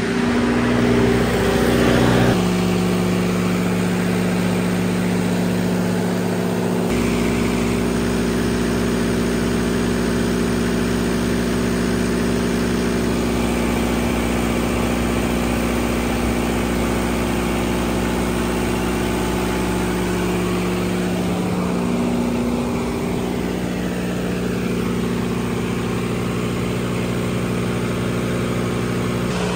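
Turbocharged diesel standby generator running at a steady, constant speed with an even hum. It is carrying heavy load from a load bank, near its 60 kW maximum.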